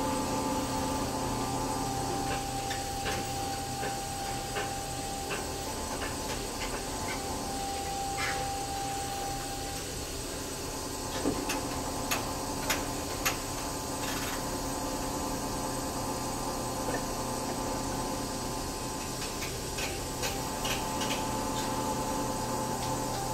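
Steady machine hum with a thin whine inside a tower crane cab as the crane slews. The whine drops out about ten seconds in and returns near the end. A few sharp clicks come about halfway through and again near the end.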